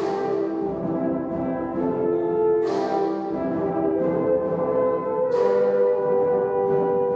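Brass ensemble of horns, trumpets, trombones and tuba playing held chords. Three ringing percussion crashes about every two and a half seconds.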